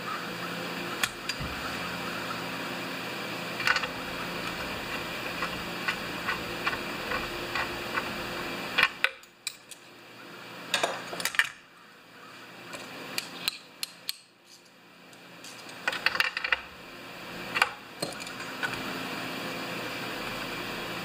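Hand tools and small metal parts clicking and clinking against a chainsaw's plastic housing and carburettor during reassembly, in scattered short knocks over a steady background hum.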